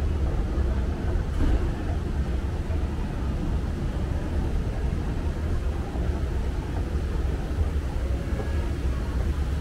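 Steady low rumble of a large indoor space's background noise, unchanged throughout, with no distinct sound standing out.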